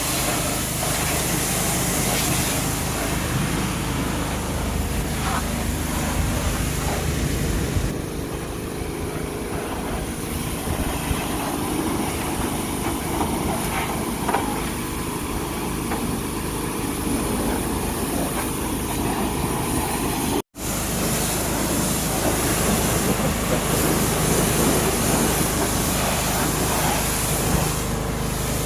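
A small engine running steadily under a continuous hiss, with a momentary dropout a little past two-thirds of the way through.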